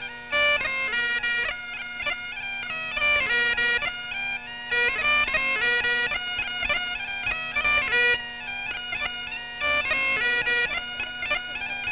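Scottish bagpipes playing a tune: a quick, ornamented melody over a steady, unbroken drone.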